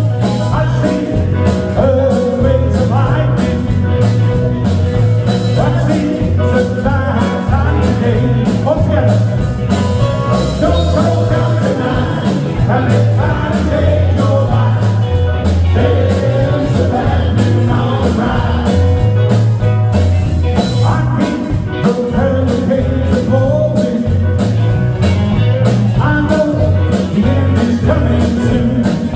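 A rock band playing: drums keep a steady beat under bass and electric guitar.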